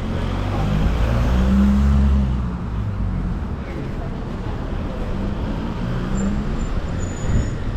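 A motor vehicle's engine running with a low hum, swelling louder about a second in and again around the middle, over steady outdoor noise.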